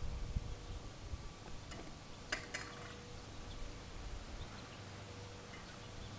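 Quiet outdoor background with a faint low rumble and a few sharp clicks about two seconds in.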